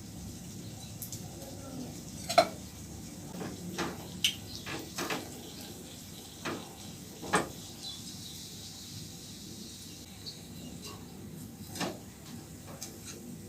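Pots, dishes and utensils clinking and knocking now and then over a low steady background, with the two loudest knocks about two seconds in and about seven seconds in.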